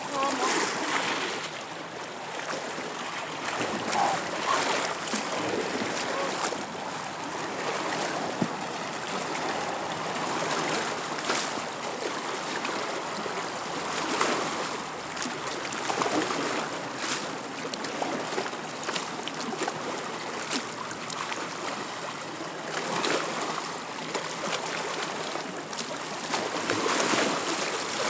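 Small waves washing and lapping against shoreline boulders, with water splashing around people wading in the shallows; a steady wash that swells and eases every few seconds.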